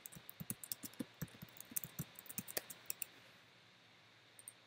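Typing on a computer keyboard: a quick, irregular run of faint key clicks for about three seconds, then two faint clicks near the end.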